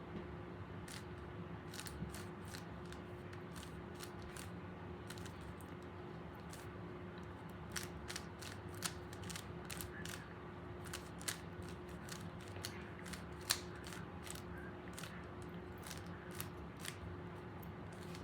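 Rubik's Cube layers being turned by hand, quick irregular plastic clicks and clacks, coming thicker in the second half, as the cube is worked to the solved state.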